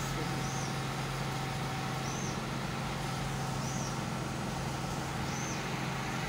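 Neighbourhood electricity generators running, a steady hum. A short, high chirp repeats about every second and a half.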